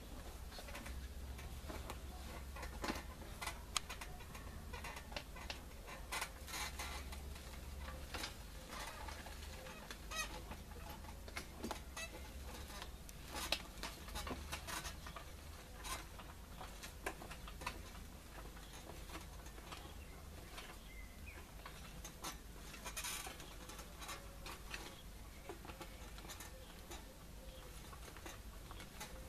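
Chickens clucking, with irregular clicks and knocks from a pedal-powered garden tractor as it pulls a small plough through the soil. There is a steady low rumble underneath.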